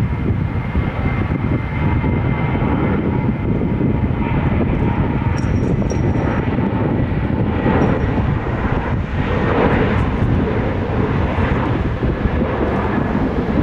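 Boeing 737 Classic jet engines (CFM56-3 turbofans) running loud and steady: a broad rumble with a whining tone in the first several seconds.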